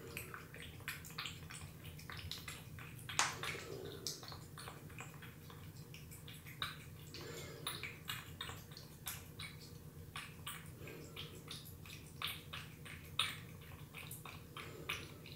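A cat lapping and eating wet cat food thinned with water into a runny paste: irregular short wet clicks and smacks several times a second, a few louder ones.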